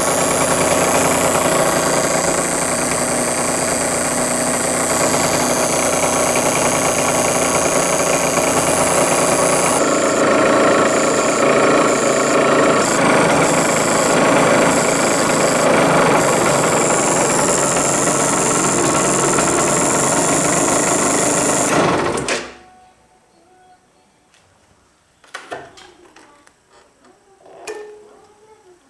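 Yamaha TZM50R's 50cc two-stroke single running steadily, with a rattling buzz the owner puts down to the cut-off relay; the engine shuts off suddenly about 22 seconds in. A few faint knocks follow near the end.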